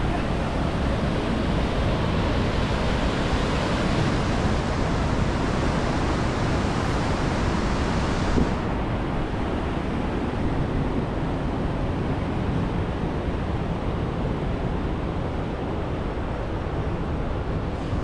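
Steady rushing of flowing river water, its higher hiss dropping away about eight and a half seconds in.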